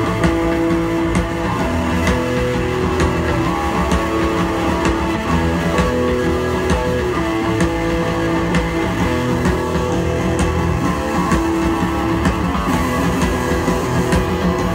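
Live band playing an instrumental passage: electric guitars over a steady drum beat.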